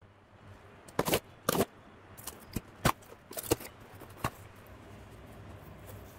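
Cardboard shipping box being opened by hand: a series of about seven sharp crackles and scrapes as the taped flaps are pulled and folded back.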